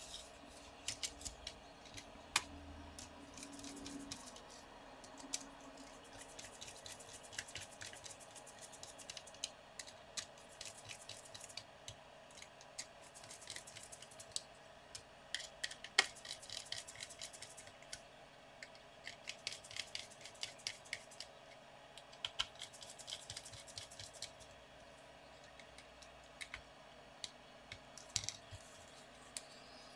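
Irregular small clicks, light taps and scrapes of a laptop's copper heatsink and fan assembly being fitted onto the motherboard and screwed down with a small screwdriver, with one sharper click about halfway through.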